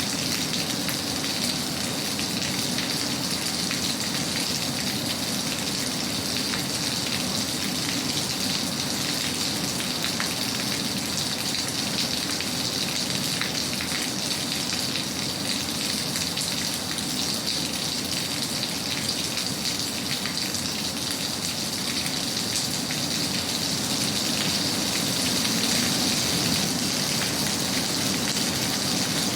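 Steady rain falling, an even hiss dotted with many fine drop ticks.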